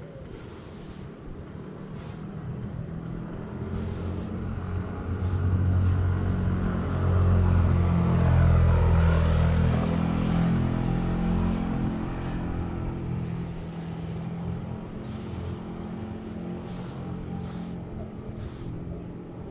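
Aerosol spray-paint can hissing in short, repeated bursts as black outlines are sprayed. A vehicle's low rumble builds up, is loudest in the middle and fades away.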